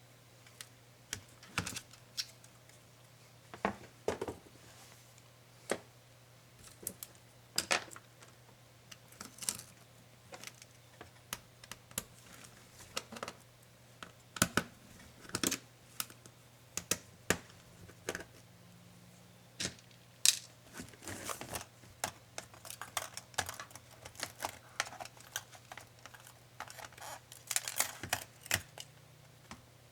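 Irregular small clicks, taps and light rattles of a laptop's plastic and metal parts and tools being handled during disassembly, over a faint steady low hum.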